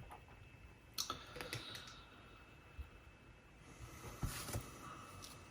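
Faint, scattered clicks and light taps of small plastic parts being handled as the battery is taken out of a disassembled Sony MZ-RH1 MiniDisc recorder, the sharpest click about a second in and a small cluster of clicks near the end.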